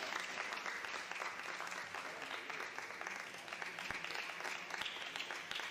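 Spectators clapping in applause, a steady dense patter of many hands, greeting a point just won.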